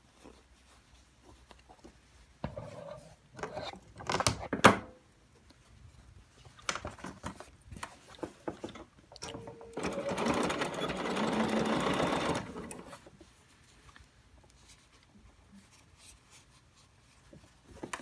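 Clicks, knocks and rustles as the fabric work is handled and positioned, the loudest a sharp knock about four and a half seconds in. Then a BERNINA 770 sewing machine stitches binding for about three seconds in the middle and stops.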